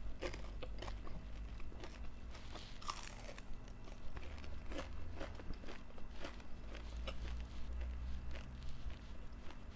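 Close-up chewing of a mouthful of food: crunching and biting with many small, irregular mouth clicks.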